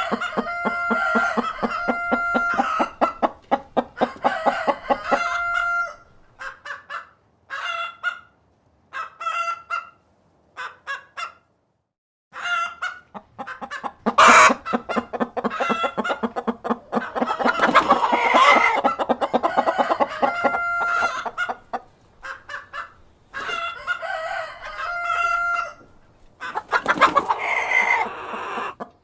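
Hens clucking in short repeated runs, with a rooster crowing among them. There is a brief pause near the middle and a single sharp click about fourteen seconds in.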